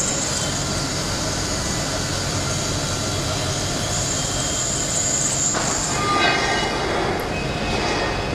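CNC horizontal band-knife foam cutting machine running, a steady mechanical noise with a high whine that stops about six seconds in.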